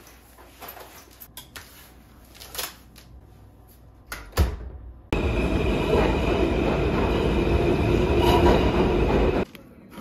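New York City subway train moving along the platform: a loud, steady rumble and rush of the passing cars for about four seconds, which cuts off abruptly. Before it there are soft handling sounds and a sharp clack about four seconds in.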